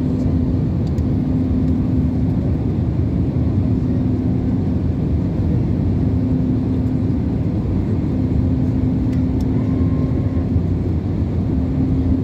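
Steady roar inside a jet airliner's cabin during descent: engine and airflow noise, with a low hum that comes and goes.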